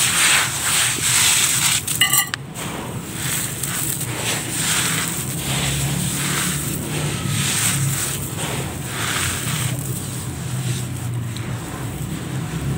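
A hand scooping and crumbling dry red dirt and gravel, the gritty pieces crunching and trickling back onto the heap in repeated handfuls. A low steady hum runs underneath from about four seconds in.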